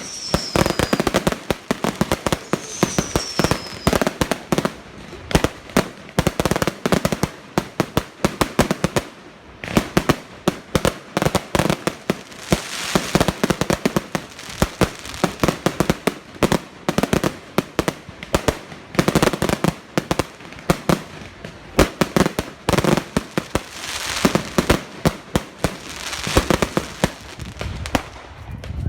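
Fireworks display: a dense, continuous run of bangs and crackling, with a falling whistle at the start and another about three seconds in.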